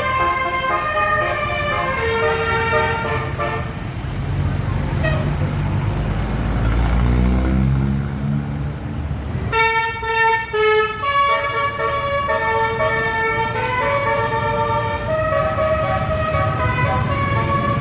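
Bus "telolet" musical horn playing a tune of held notes that change pitch in steps. It breaks off about four seconds in, leaving the bus engine rumbling and rising in pitch, then the horn tune starts again nearly ten seconds in.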